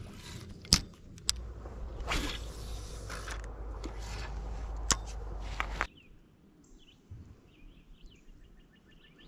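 Handling noise from a spinning rod and reel: a few sharp clicks and rubbing over a steady low hum, which cuts off suddenly about six seconds in. After that it is much quieter, with faint, evenly spaced ticking near the end.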